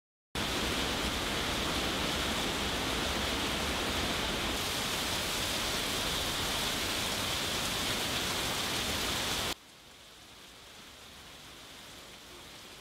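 Heavy tropical downpour, a steady hiss of rain pouring down. It starts abruptly just after the beginning and drops sharply to a faint hiss about nine and a half seconds in.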